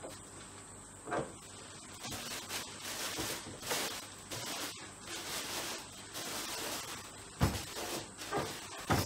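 Thin plastic bag crinkling and rustling in irregular bursts as it is pulled off a robot lawn mower by hand. Two dull thumps near the end.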